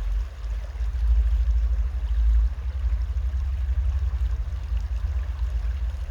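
Wind buffeting the microphone: an uneven low rumble, heaviest for a second or so near the start, then easing a little.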